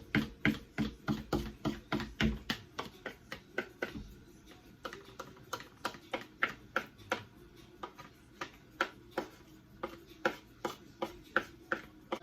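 Knife chopping hard-boiled eggs on a cutting board: a steady run of quick, sharp taps, about three or four a second.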